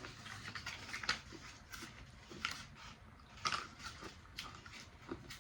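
A person chewing chalky candy buttons close to the microphone, with irregular small crunches and mouth clicks.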